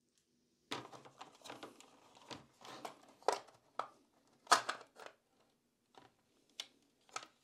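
Plastic casing of a 12V tyre-inflator air compressor being handled and pulled apart: scattered clicks, knocks and scrapes of plastic parts, with a few louder knocks near the middle.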